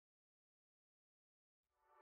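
Silence, with faint music beginning to fade in near the end.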